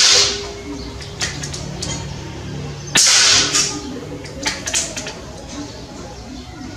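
Air gun shots firing pellets at a target board: one sharp crack with a short hiss about three seconds in, the tail of a shot at the very start, and another shot right at the end.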